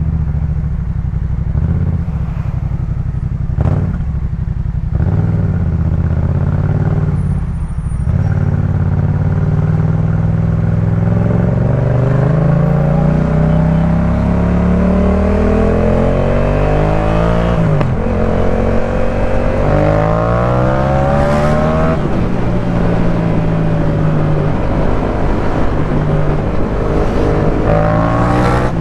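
2018 Yamaha MT-07's parallel-twin engine through a Jeskap K4 full aftermarket exhaust, heard from the rider's seat while riding. It runs low and steady at first, then pulls with rising pitch through two upshifts, and holds a steady speed before rising again at the end.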